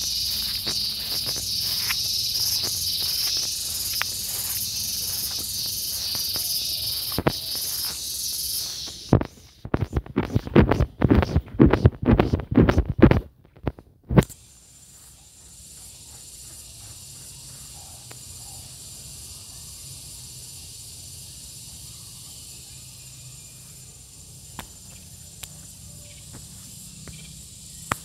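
Garengpung cicada singing a loud, steady high buzz over footsteps in grass. About nine seconds in, loud rustling and knocks take over for several seconds. Then the buzz stops and only a faint high hiss remains.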